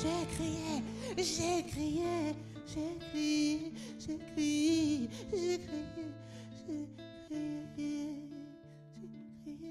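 Live band music: a woman singing a slow, wavering melody into a microphone over soft sustained chords, without drums. The music thins out and gets quieter near the end.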